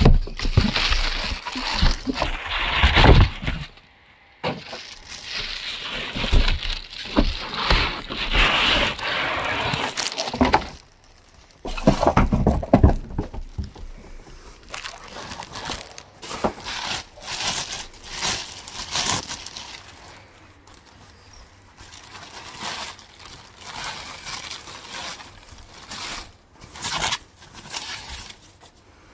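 Clear plastic packaging bags crinkling and rustling as they are handled and unwrapped, in irregular bursts with two brief pauses, about 4 and 10 seconds in.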